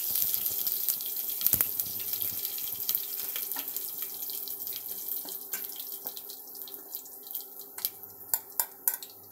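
Curry leaves sizzling in hot tempering oil with cumin and mustard seeds in a steel pot: a loud hiss that slowly dies down, with scattered sharp pops and crackles that stand out more toward the end. One knock about a second and a half in.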